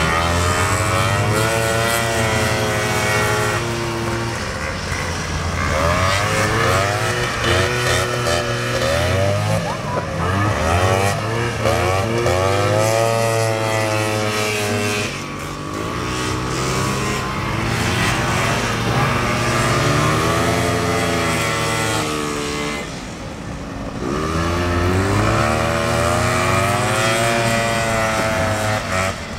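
Several vintage two-stroke snowmobile engines racing, revving up and easing off again and again, their pitch repeatedly climbing and falling. The sound drops briefly a little past two-thirds of the way through.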